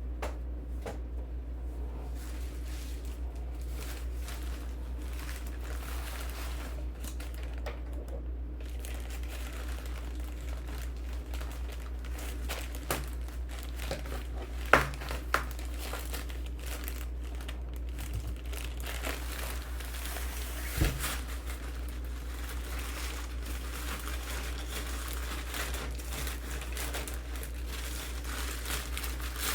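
Keyboard packaging being unwrapped by hand: continuous crinkling and rustling of wrapping, with a few sharp knocks as the box is handled, over a steady low hum.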